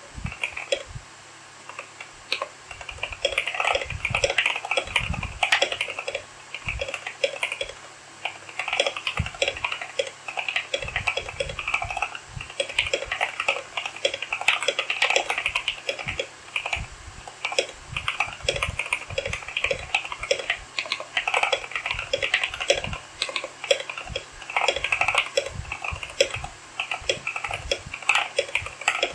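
Continuous typing on a modded Keychron K8 mechanical keyboard, with lubed stabilisers, a painter's-tape (tempest) mod and PE foam: a rapid run of key clicks with brief pauses, and deeper thumps from some keys among them.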